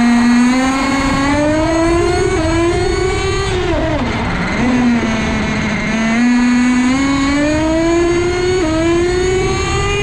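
Kyosho AMG GT3 nitro RC car's KE25 two-stroke glow engine revving at high pitch. The revs climb, dip slightly as the two-speed transmission shifts up about two seconds in, and fall off throttle about four seconds in. They then climb again, with another small dip near the end as it shifts up once more.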